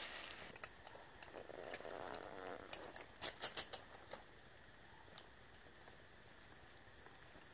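Dry leaf litter rustling and crackling, with a run of sharp clicks that stops about four seconds in.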